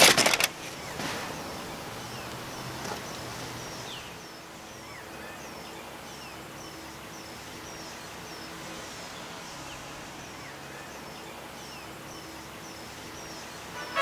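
Outdoor ambience with a bird repeating a short, high chirp a little under twice a second. A brief clatter comes right at the start.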